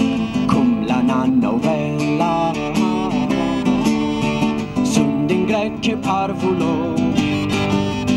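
Medieval-style folk tune played on an acoustic guitar, its chords strummed with regular strokes, with a higher wavering melody line over it.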